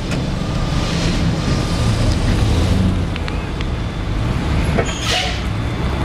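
Fire truck diesel engines running steadily with a deep rumble, with a short hiss about five seconds in.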